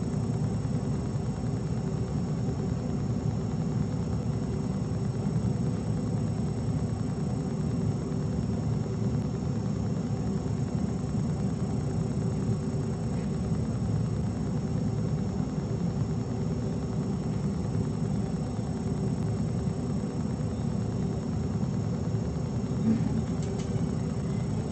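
Steady low hum and rumble of running room machinery, with a few faint steady tones above it. A brief faint sound comes near the end.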